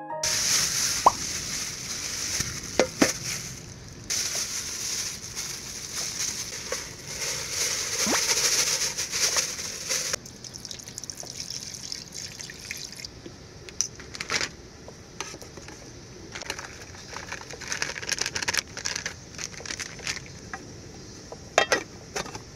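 Water running and pouring with splashes and a few light knocks, in several short edited segments; loudest in the first ten seconds.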